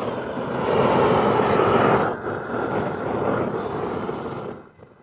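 GrillBlazer Grill Gun propane torch burning: a steady rush of flame, louder from about half a second to two seconds in, then lower, dying away near the end.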